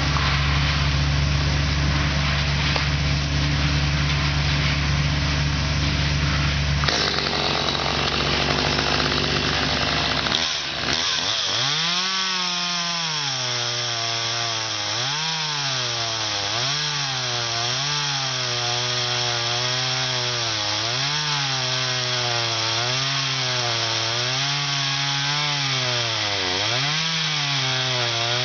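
Steady low engine hum of a wood chipper at first. About eleven seconds in, a top-handle climbing chainsaw takes over, its pitch repeatedly rising and dipping as it cuts the felling notch into the pine trunk.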